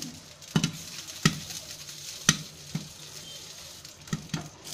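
Popcorn kernels popping in hot oil inside a closed aluminium pressure cooker run without its gasket or whistle: about six sharp pops, a second or so apart, over a faint sizzle. The popping has thinned out because nearly all the kernels have burst.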